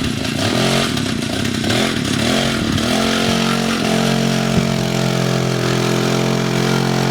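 Homemade tricycle's two-stroke chainsaw engine running. Its pitch wavers up and down over the first few seconds, then holds steady. It runs poorly because the old KMP-100 carburetor's diaphragm has dried out and two of the diaphragm's tabs have broken off.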